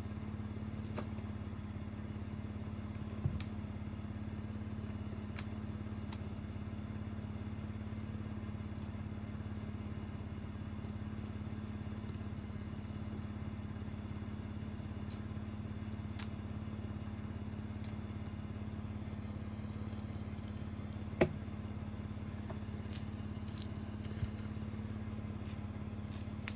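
Pickup truck engine idling steadily, with a few sharp clicks and knocks over it, the loudest about twenty-one seconds in.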